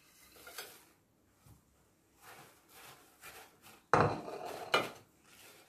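Faint rustle of crushed biscuit pieces tipped into a glass bowl of chocolate mixture, then about four seconds in a spatula stirring and scraping in the glass bowl, with a sharp knock against it.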